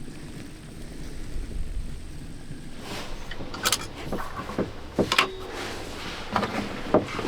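A low steady rumble, then from about three seconds in a run of sharp knocks and clunks, the loudest about five seconds in.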